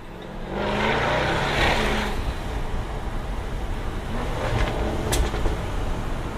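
Jaguar F-Type V8 R's supercharged 5.0-litre V8 opening up hard about half a second in, then settling lower, with a few sharp exhaust pops and crackles around five seconds in.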